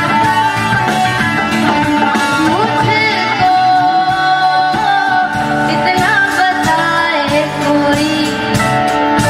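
A boy singing a Hindi film song into a microphone, backed by a live band with guitar and drums keeping a steady beat.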